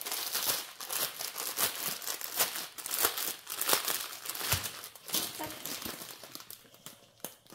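Clear plastic packaging crinkling as the bundle of bagged resin diamond-painting drills is handled, a dense crackle that thins out near the end.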